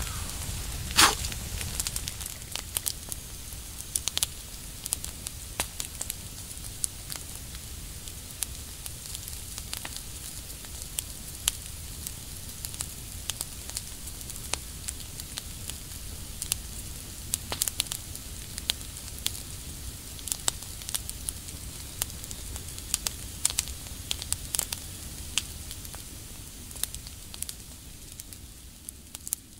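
Campfire burning with a steady low hiss and irregular sharp crackles and pops, a loud pop about a second in, fading away near the end.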